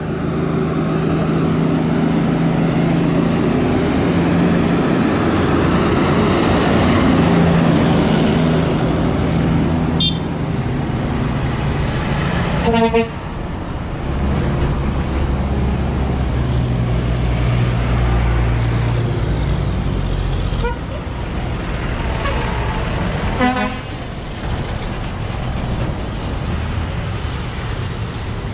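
Diesel tractor-trailers passing one after another, with the rapid drone of an engine brake through the first half. A truck horn toots briefly twice, about halfway and again later.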